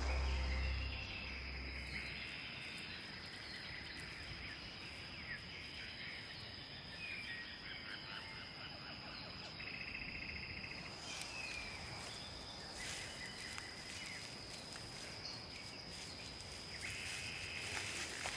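Tropical forest ambience: a steady high-pitched insect drone, with scattered short bird chirps and a couple of brief buzzing trills.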